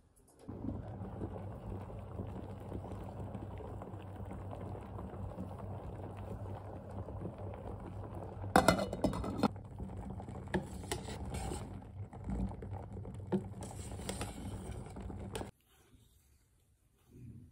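Korean soybean-paste stew (doenjang jjigae) boiling in a steel pot on a stovetop hob, a steady bubbling with a low hum under it. A cluster of sharp knocks comes about halfway through and a few single ones after. It cuts off suddenly near the end.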